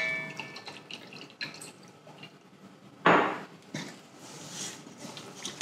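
Olive oil pouring and dripping from a bottle onto raw rabbit meat in a stainless steel bowl, opening with a brief ring from the metal bowl. About three seconds in comes a short, louder squishy rustle as hands start rubbing the oil into the meat in the bowl.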